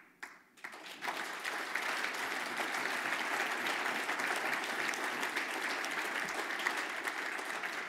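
Audience applauding, a steady dense patter of many hands clapping that starts about a second in.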